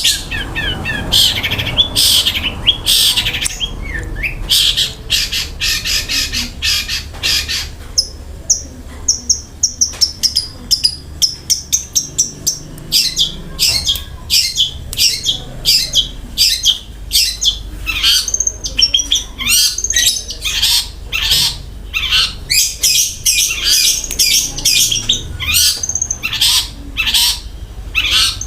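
Long-tailed shrike (cendet) singing in full voice, mixing harsh scratchy notes with mimicked phrases: fast runs of rasping notes, then about eight seconds in a few seconds of high slurred whistles, then rapid harsh notes again.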